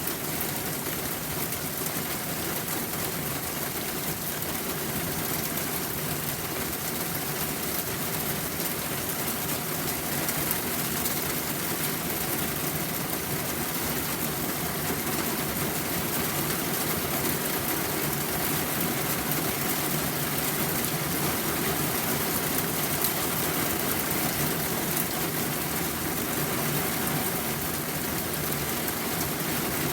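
Steady rain falling: a continuous, even hiss that holds at one level throughout.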